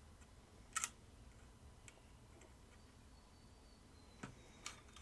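Near silence broken by a few faint, sharp clicks and taps; the loudest comes a little under a second in. These are small handling noises from the hands working on a plastic toy.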